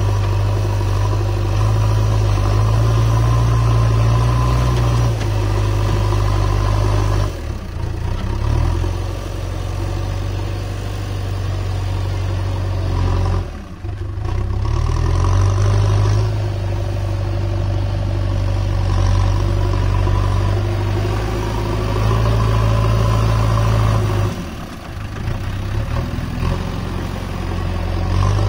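JCB 3DX backhoe loader's diesel engine running steadily while the front loader bucket pushes and carries soil, the sound dipping briefly three times.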